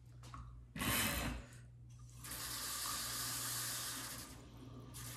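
Kitchen faucet running, its stream pouring into a slow cooker full of canning jars to bring the water up over the jars. A brief louder burst of noise about a second in, then a steady rush of water that eases off past four seconds and picks up again near the end.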